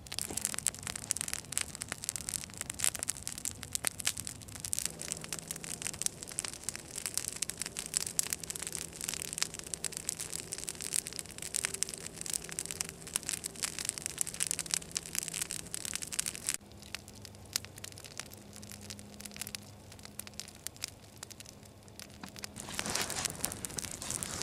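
Wood campfire crackling, with a dense run of small snaps and pops that thins out for a few seconds past the middle and grows busier again near the end.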